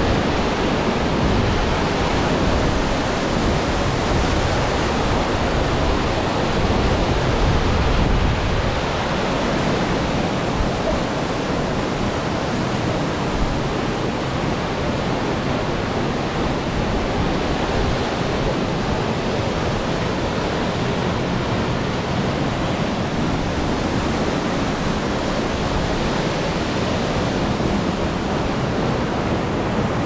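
Small waterfall splashing steadily into its plunge pool: a constant rushing hiss of falling water.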